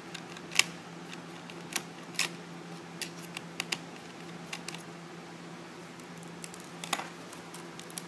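Scattered small plastic clicks and taps as fingers work a flat ribbon cable and its connector inside an opened Asus Eee PC netbook, over a steady low hum.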